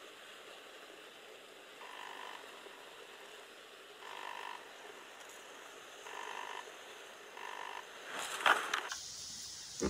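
A float rod swept up sharply to strike a bite: a brief loud swish about eight seconds in, with a steady hiss after it. Before it, quiet lakeside background with four faint short tones about two seconds apart.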